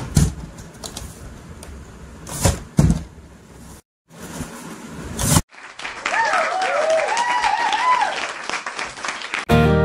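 Handling noise of plastic toy figures and a cardboard toy box on a tabletop: room hiss with a few sharp knocks as they are set down. A faint warbling pitched sound is heard about two-thirds of the way in, and strummed acoustic guitar music starts just before the end.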